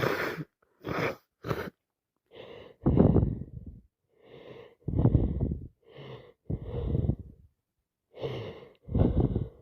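A woman congested with a head cold, breathing heavily and wheezily through a stuffed nose. A few short, quick breaths come first, then four rounds of a quieter in-breath followed by a louder, longer out-breath.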